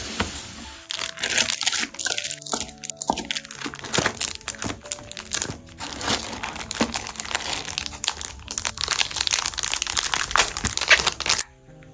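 Clear plastic packaging crinkling and crackling as hands flip through cellophane-wrapped stationery packs and handle a plastic bag. The crinkling is dense and irregular, and it stops abruptly near the end.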